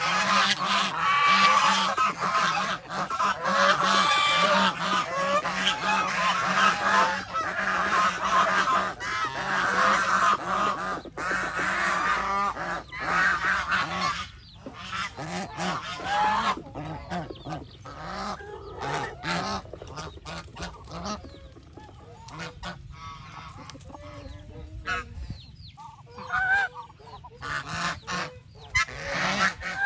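A flock of Chinese geese honking, many overlapping calls at once for about the first half. The calling then thins out to scattered, quieter honks and picks up again near the end.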